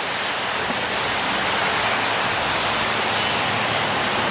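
Steady hiss of rain falling, building a little over the first second and then holding even.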